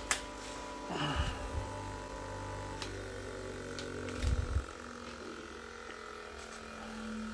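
A Parkside double-wheel bench grinder is handled on a wooden tabletop: its metal body is tilted and turned, giving low bumps and knocks about a second in and again a little after four seconds, over a faint steady hum.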